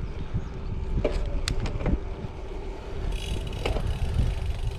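Gravel bike rolling over a concrete path, with wind rumbling on a handlebar-mounted camera's microphone and the bike rattling and knocking over bumps. About three seconds in, a fast, high ticking starts: the freehub clicking as the rider coasts.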